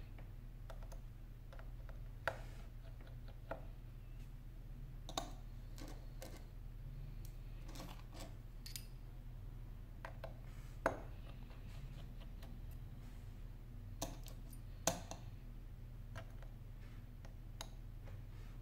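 Small, sharp, irregular clicks and taps of a precision screwdriver and small metal parts being handled inside an opened iPhone 7, a few louder ones standing out among lighter ticks. A steady low electrical hum runs underneath.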